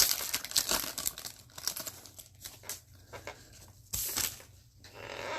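Trading cards and their foil pack wrapper being handled: rapid crinkling, scraping and flicking as the cards are slid and flipped through one by one, with a louder crinkle about four seconds in.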